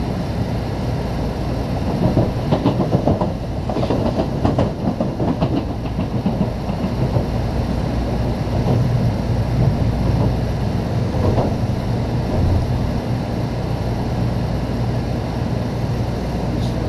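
Cabin noise inside a Shinkansen car moving off from a station: a steady low rumble of the running train, with a cluster of clicks and clacks from the wheels over rail joints and points about two to six seconds in.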